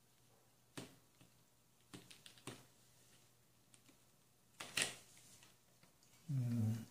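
Faint, scattered light clicks and taps as a soldering iron and a plastic headphone earcup are handled while tiny wires are desoldered from the driver, the loudest tap a little before the end. A short low voice murmur comes near the end.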